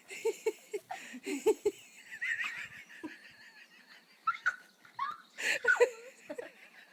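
People giggling and laughing in short repeated bursts.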